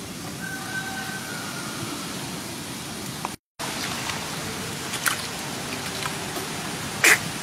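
Steady noisy hiss that breaks off briefly about halfway, then water splashing and sloshing as a baby monkey thrashes in a shallow muddy puddle, with a sharp splash shortly before the end.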